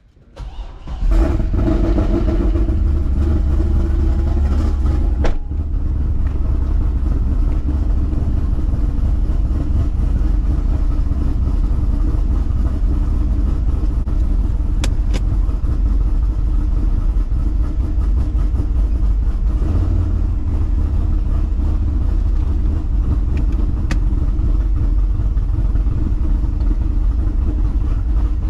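Corvette Z06's naturally aspirated LS7 V8 starting about a second in, flaring up for a few seconds and then settling into a loud, steady idle.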